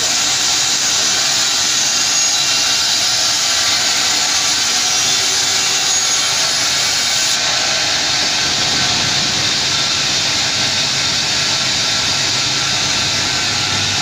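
Log band sawmill sawing a large pine log: the band blade cuts as the carriage feeds the log through, with the sawdust extraction blower running. It makes a loud, steady, hissing whir with no breaks.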